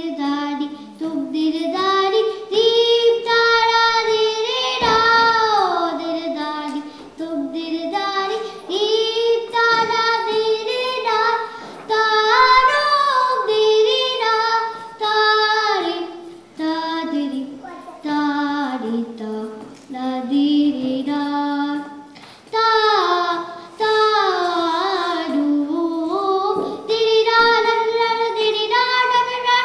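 A young girl singing raag Yaman in Hindustani classical style, in phrases of held notes with gliding ornaments. She accompanies herself on a harmonium.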